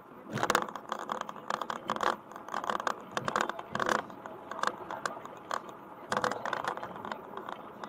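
Irregular rattling and scratching: uneven clusters of sharp clicks that start about half a second in and keep coming, typical of something loose rattling inside a moving car.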